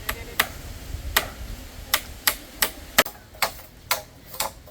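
A series of sharp knocks or taps, spaced unevenly at first, then settling into a regular beat of about three a second.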